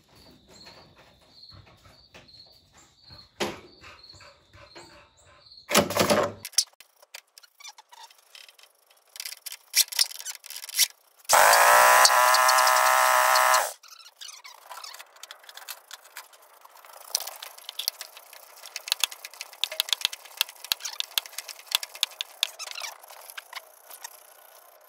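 A riding mower's electric starter, fed through jumper cables, whines for about two seconds, rising briefly in pitch and then holding before cutting off sharply, without the engine turning over. The owner blames jumper cables too poor to get enough current to the starter. A brief loud crackle comes a few seconds before.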